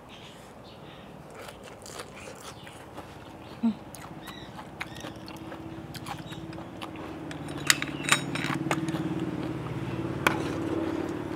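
Close-up eating sounds of a mouthful of spicy salad with blood cockles: chewing, lip smacks and small wet clicks, with a few sharper clicks around two-thirds through and near the end. A low steady hum builds up from about halfway.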